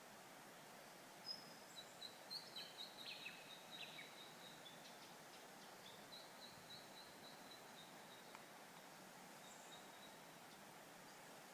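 Faint wild birdsong over a steady background hiss: runs of quick, high chirping notes starting about a second in, and a second run around the middle.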